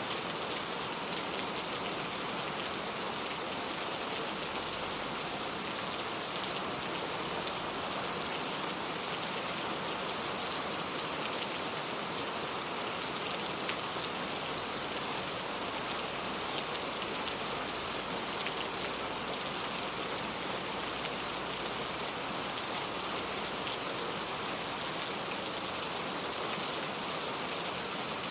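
Steady rain falling on a surface, a dense even hiss with faint scattered drop ticks.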